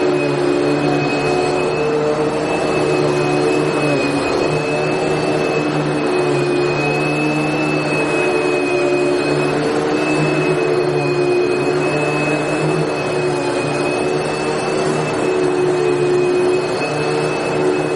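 Vacuum cleaner running steadily, its motor giving a constant whine over an even rush of air.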